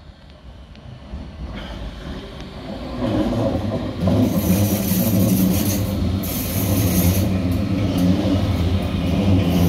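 Oslo Metro MX3000 metro train running close by, growing louder over the first four seconds, then holding steady with a low hum and a high hiss.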